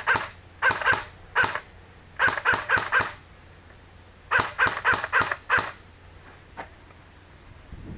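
Airsoft rifle firing in several short bursts of rapid shots, with pauses between the bursts.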